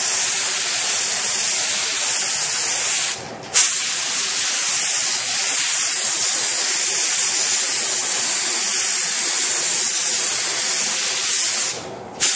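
Iwata compressed-air spray gun hissing steadily as it sprays filler primer onto a tractor body part. It pauses briefly about three seconds in and stops near the end, with a short final burst.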